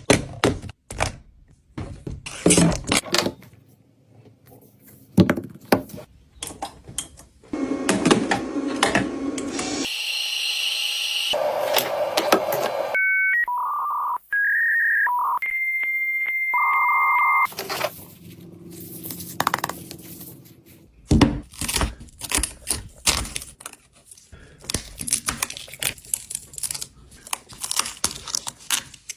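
Repair work on a smartphone: many sharp clicks and taps of small tools and parts. A stretch of steady noise comes about a third of the way in, then a run of short electronic beeps and steady tones around the middle, and the clicking and tapping resumes near the end.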